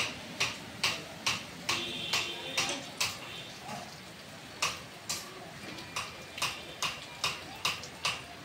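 Hooves of an ox pulling a cart, clopping on a wet road at a walking pace of about two steps a second, with a pause of about a second near the middle.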